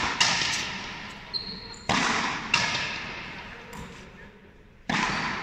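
Frontenis rally: rackets striking the rubber ball and the ball cracking against the front wall, sharp pairs of cracks about every two and a half seconds, each ringing with a long echo in the hall.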